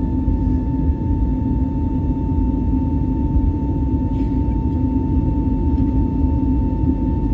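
Jet airliner's engines and airflow heard from inside the cabin during the climb after takeoff: a steady low rumble with a constant thin tone above it.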